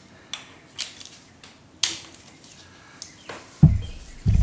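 A few scattered clicks and light knocks of tools and metal being handled, the sharpest about two seconds in, followed by two dull thumps near the end.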